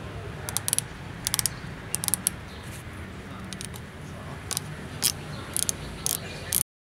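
Rear sight on the MKA1919 shotgun's carry handle being turned by hand: a series of small, sharp clicks in irregular clusters, typical of a sight knob's adjustment detents. The sound cuts off suddenly near the end.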